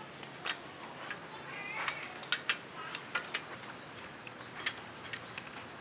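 Irregular sharp metallic clicks and clinks from a socket wrench being fitted and worked on a rusty bicycle crank bolt, about a dozen over a few seconds.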